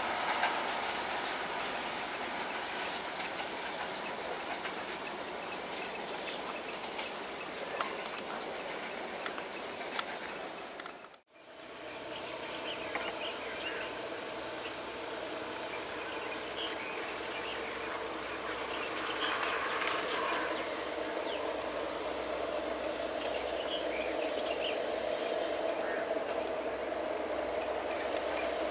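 Steady high-pitched chirring of insects over the running of a diesel train. The sound breaks off briefly about eleven seconds in, then resumes with a steady lower engine hum from a second approaching diesel train.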